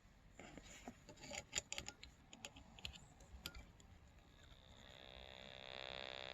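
A run of sharp clicks and knocks, then from about four and a half seconds in a steady electronic buzz fades in and holds. The buzz comes from a Vero VGC VR-N7500 radio while it is switched off, and it persists even when the radio is powered straight from a 12 V battery.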